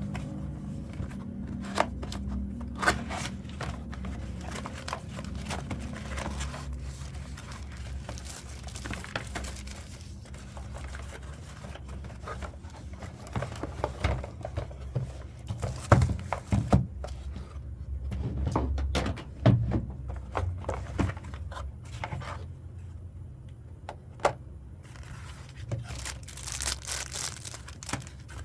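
Unboxing handling of a mechanical keyboard's packaging: wrapping crinkling and rustling, with scattered knocks and taps of the box and its contents, and a longer spell of rustling near the end.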